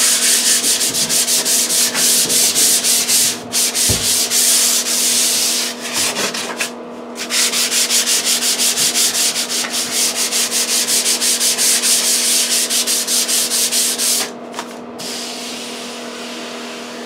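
Fine 220-grit sandpaper rubbed by hand over dried drywall joint compound in quick back-and-forth strokes, with a few brief pauses, feathering the edges of the patch where the coats overlap. The sanding stops about 15 seconds in, leaving a softer rubbing.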